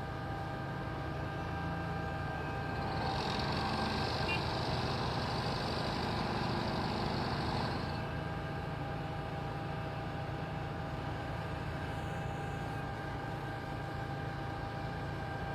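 Engine of a paving or construction machine running steadily with a low hum, and a louder hiss rising over it for about five seconds from about three seconds in.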